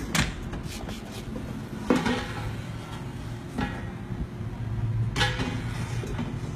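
Air fryer drawer and its non-stick metal basket being handled: four separate clunks and knocks about a second and a half to two seconds apart, over a low steady hum.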